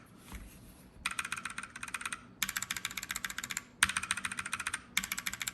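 Rapid typing on a mechanical keyboard fitted with Kailh Speed Silver linear switches. The first second is quiet, then come four quick runs of key clacks, many strokes a second.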